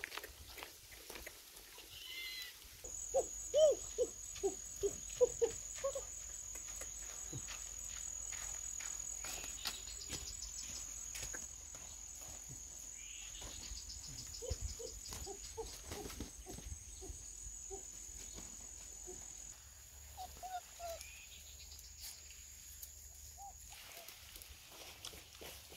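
An insect's steady, high-pitched trill that starts about three seconds in and stops a couple of seconds before the end. Clusters of short squeaky chirps come through under it around four seconds in and again in the middle.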